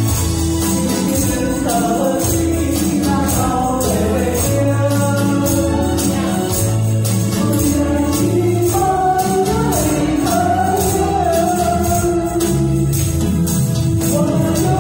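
A woman singing a pop song into a microphone over a backing track with a steady beat, while a group shakes small tambourines in time.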